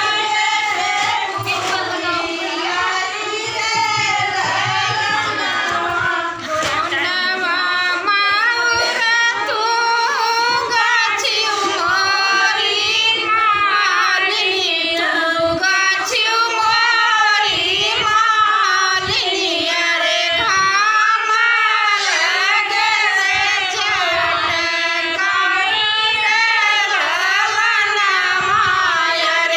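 A group of women singing a north Indian folk wedding song (vivah geet) together, their voices continuous through the whole stretch.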